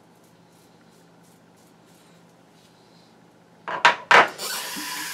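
A Mongoose safety razor with a Feather blade scrapes through lather and stubble on the neck in quick, short, quiet strokes. Near the end come two loud knocks, then a tap runs steadily into the sink to rinse the razor.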